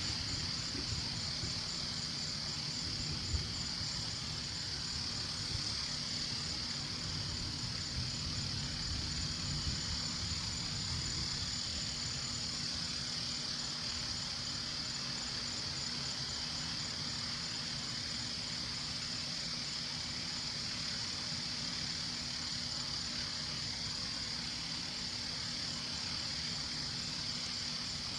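A steady high-pitched chorus of night insects trilling without a break, over a low rumble.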